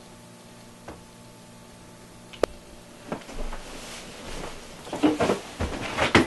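Hand-handling noise: one sharp click about halfway through, then a run of knocks, taps and rustling that gets busier toward the end.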